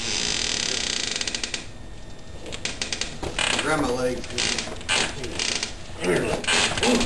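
Rapid mechanical ratchet-like clicking for about the first second and a half, then irregular squeaks and creaks.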